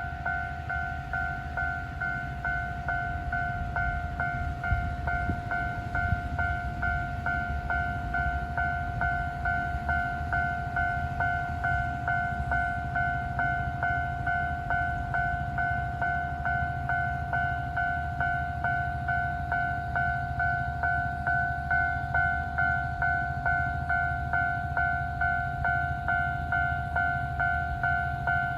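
Japanese railway level-crossing warning bell ringing steadily in quick, evenly repeated strokes, over a low rumble.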